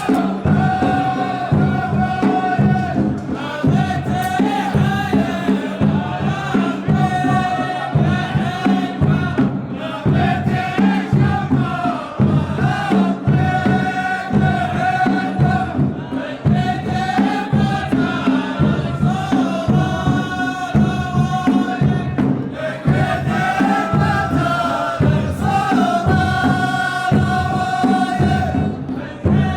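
Saudi ardah: a chorus of men chanting a poem in unison, phrase after phrase, over a steady beat of large drums.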